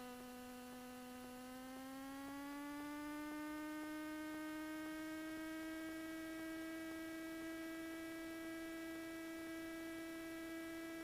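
Low, steady electrical whine on a Cessna 207's cockpit audio feed: one clean tone with a ladder of overtones. About two seconds in, its pitch glides up a little, then holds steady.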